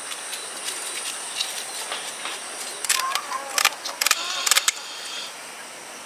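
Fish scales being scraped off a whole tilapia with a hand scaling tool: a quick run of short, rasping strokes about three to five seconds in, against a steady background.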